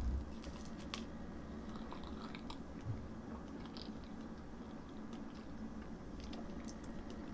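Faint, soft chewing of a mouthful of lemon meringue pie, with a few small mouth clicks.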